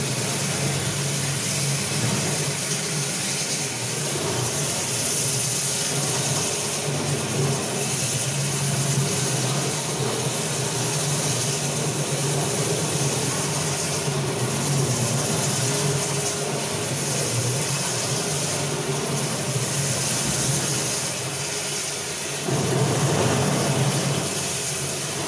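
Marble floor polishing machine running steadily with its pad on the wet floor: a steady motor hum under an even hiss, a little louder near the end.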